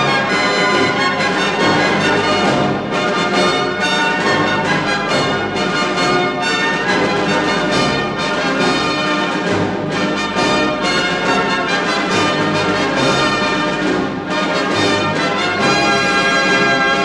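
Orchestral background music with prominent brass, loud and continuous.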